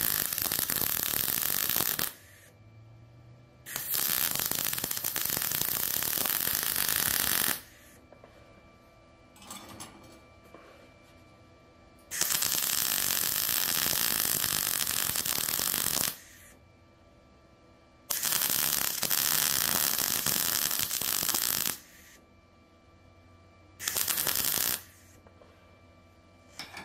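MIG welder arc crackling on scrap steel in five separate welds of a few seconds each, with short pauses between; the last one is brief.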